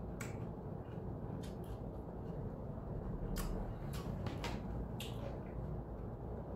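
Small, sharp clicks and taps from handling a plastic drink cup, salad container and phone at a table, about eight spread over the few seconds, over a steady low room hum.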